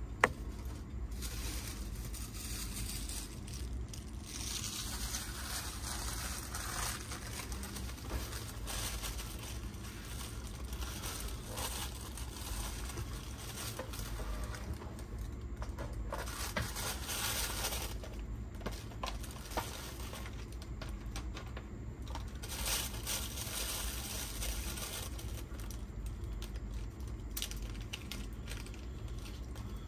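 Hands handling new drive belts while fitting them to a cassette deck's tape transport: irregular crinkling and rustling with a few small clicks, one sharp click right at the start, over a steady low hum.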